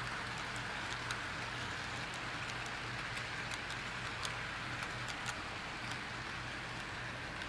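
HO-scale model passenger train running on track: a steady rolling hiss with light, irregular clicks from the wheels on the rails, several a second, over a low steady hum.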